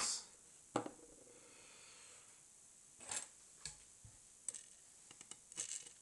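A few faint, scattered clicks and taps of small lock parts being handled: a disassembled lock cylinder core and its pins, with tweezers picking pins from a plastic pin tray.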